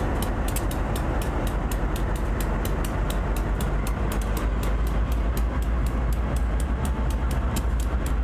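A pair of diesel-electric locomotives, a GE B39-8E and an EMD GP38, running light at low speed, their engines giving a steady deep rumble. A fast, even, high ticking, about five or six a second, runs through it.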